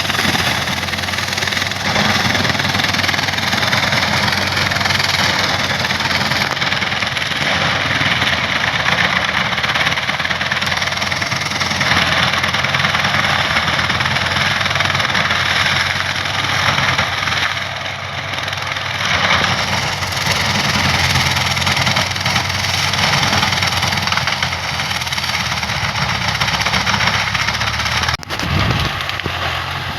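Swaraj 744 FE tractor's diesel engine running steadily, with a brief dip about 28 seconds in.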